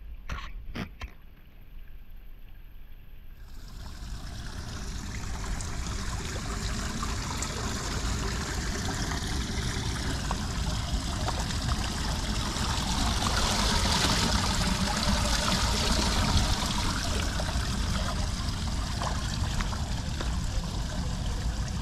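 Water running and trickling into a street storm-drain grate, a steady rushing that builds up over the first dozen seconds, with a low rumble underneath.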